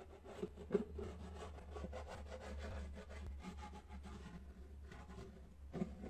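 Squeezable plastic bottle of liquid silicone glue being pressed and dragged with its nozzle along a cardboard edge, giving irregular rubbing and small crackles, with a few sharper clicks about a second in and near the end.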